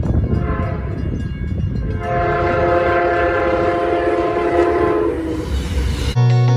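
Amtrak GE P42DC diesel locomotive sounding its air horn for a grade crossing as the train approaches: a short note about half a second in, then a long chord held for about three seconds, over the steady rumble of the train. Near the end the sound cuts off abruptly to guitar music.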